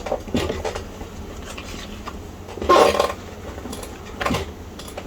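Hard parts of a Tandy 1000 EX computer clinking and knocking as it is handled and turned around during reassembly. A few separate clatters; the loudest comes about three seconds in and a shorter one just past four seconds.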